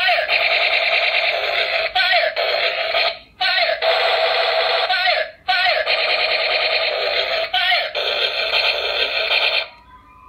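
Electronic sound effect from a light-up plastic toy gun's small speaker: a warbling tone played in repeated bursts of about two seconds with short breaks, stopping shortly before the end.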